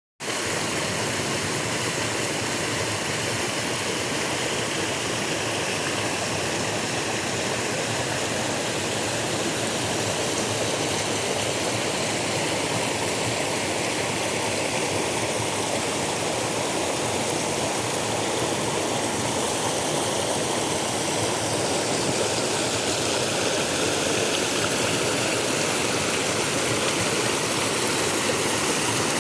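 River water running steadily over rocks, a continuous rushing noise.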